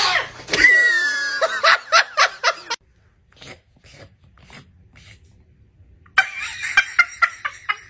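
A person laughing in quick repeated bursts for the first few seconds, then again near the end, with a quiet stretch between.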